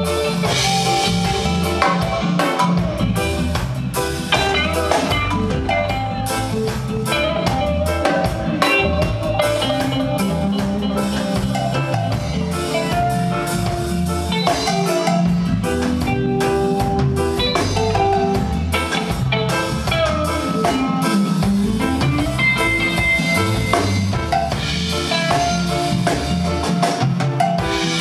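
Live band playing an instrumental passage with electric guitar, drum kit, bass guitar and keyboards.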